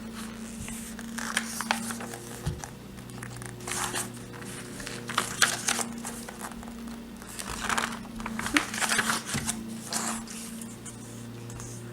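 Paper rustling and crinkling in several short bursts, as the pages of a picture book are handled and turned, over a steady low electrical hum.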